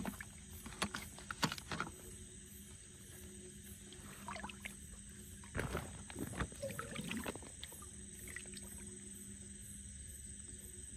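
Water splashing and sloshing in a few short bouts as someone moves through shallow river water, the busiest bout about halfway through. A steady high-pitched drone runs underneath.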